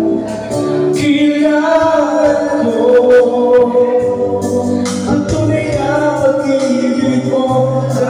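Singers performing into microphones through a PA system over a music backing track, holding long sung notes.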